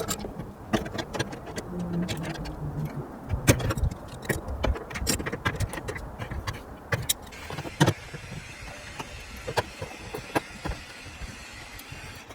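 Scattered clicks and knocks of work on the water heater's pipe fittings, over a steady low background noise.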